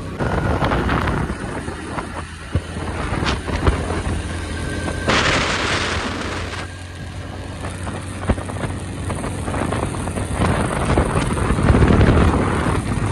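Small commuter motorcycle engine running steadily while riding, with wind buffeting the microphone. A louder rush of wind noise comes about five seconds in.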